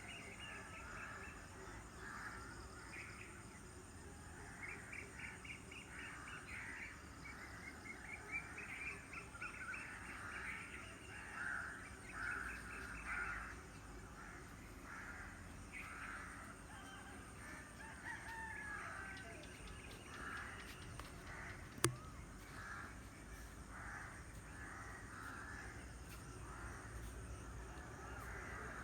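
A morning chorus of birds, with harsh calls repeating throughout over a steady outdoor background. A single sharp click about three-quarters of the way through.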